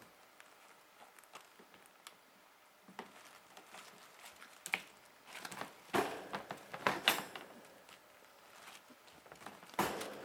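Kittens at play: irregular soft taps and scuffles of small paws scampering and skidding on the floor, sparse at first and busiest in a flurry just past the middle and again near the end.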